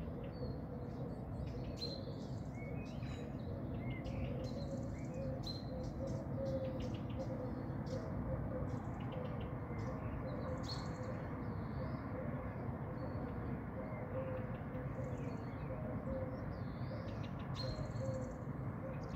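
Small birds chirping in short, scattered calls over a steady low background noise.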